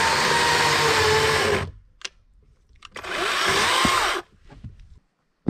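Electric saw motor running at full speed while cutting firewood. It cuts out about a second and a half in, then runs again for just over a second before stopping.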